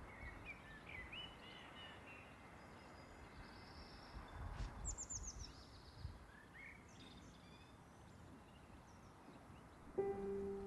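Faint outdoor ambience of small birds chirping and calling, with a quick run of falling notes about five seconds in, over a low rumble. Near the end a steady held low tone starts suddenly.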